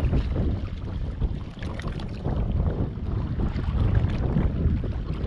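Small boat under way at sea: wind rumbling on the microphone, with water splashing and slapping against the hull.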